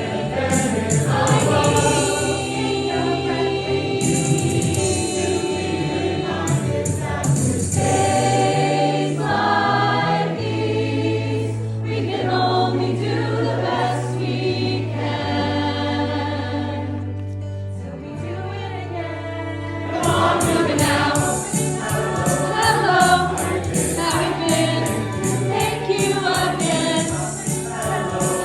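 Choir singing a song over an accompaniment with a steady bass line and a rhythmic beat. The beat thins out in the middle and comes back strongly about two-thirds of the way through.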